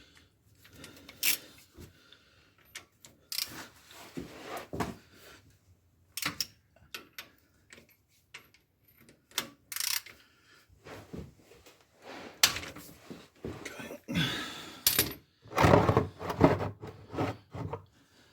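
Irregular metallic clicks, knocks and clatter of a 21 mm wrench working on the gearbox drain plug under a car, growing busier and louder in the last few seconds.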